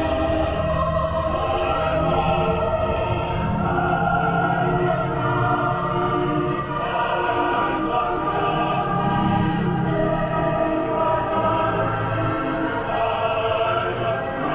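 Background music: sustained choral voices held in long chords.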